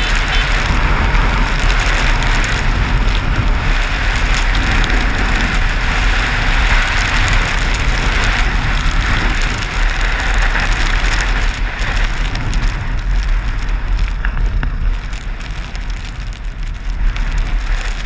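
Wind rushing and buffeting over a helmet-mounted camera's microphone as a dirt bike rides through snow, a steady loud rush that eases a little a few seconds before the end.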